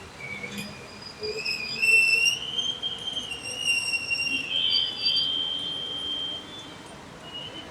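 A high-pitched whistling squeal that wavers slightly in pitch and holds for several seconds, with a shorter tone cutting in near the middle, over faint traffic noise.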